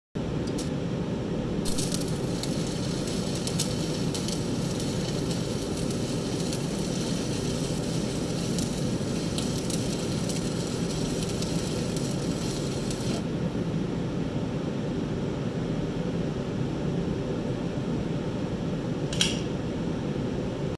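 Stick (MMA) welding arc crackling and sizzling over a steady low hum. The crackle eases off about two thirds of the way through, and there is one sharp click near the end.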